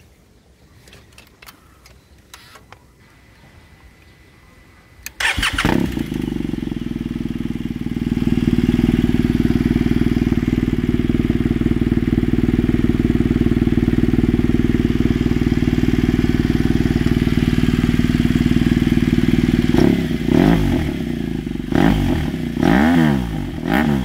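BMW R1200GS Adventure's boxer-twin engine starting through an SC-Project GP-style exhaust about five seconds in, then idling loudly and steadily. A few quick revs come near the end.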